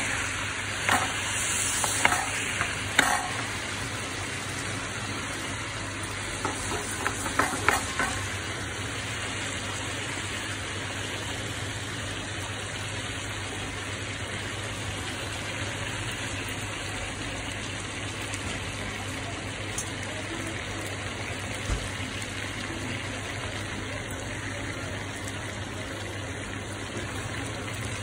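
Prawns and fish pieces shallow-frying in oil in an aluminium pan: a steady sizzle, with a few sharp clicks in the first three seconds and a quick cluster of them about seven seconds in.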